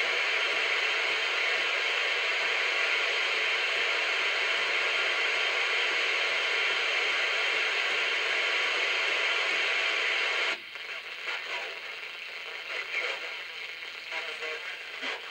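Steady receiver hiss of static from the Uniden Uniace 300 CB base station's speaker as it is switched through the channels. About ten and a half seconds in the hiss drops abruptly to a much fainter, uneven background with a few small clicks.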